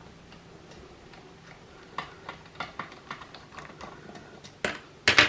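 Light clicks and ticks of a small screwdriver and the console's plastic parts being handled during disassembly. The clicks are scattered and come louder and closer together near the end.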